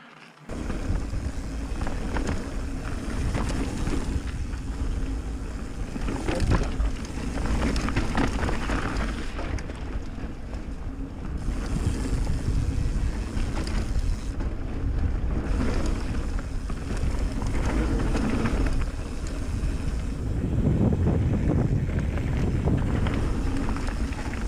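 Wind buffeting the camera microphone over the steady rumble and rattle of a mountain bike riding fast along a dirt trail, with scattered knocks from the rough ground. It starts abruptly about half a second in.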